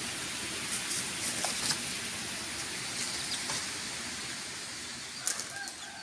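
Steady outdoor hiss with scattered light clicks and rustles from chickens moving about on dry leaves and litter, and a short cluster of clicks near the end.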